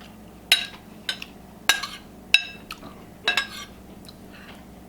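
Metal cutlery clinking against a plate while eating, about five sharp ringing clinks spread over the first three and a half seconds.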